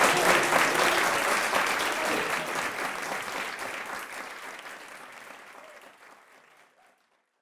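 Audience applauding, a dense patter of many hands clapping, gradually fading out to silence near the end.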